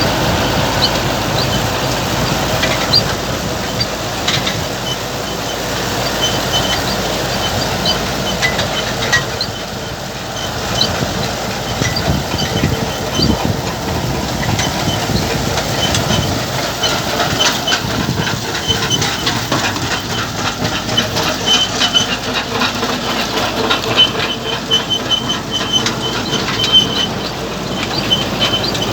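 Harvest machinery running with a steady mechanical rattle and many short, high-pitched metallic squeaks and creaks, more frequent in the second half.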